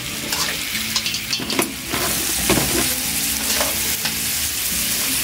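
Hot oil and blended seasonings sizzling steadily in a large pot as crab pieces are laid in, with several sharp knocks of crab shell against the pot in the first few seconds.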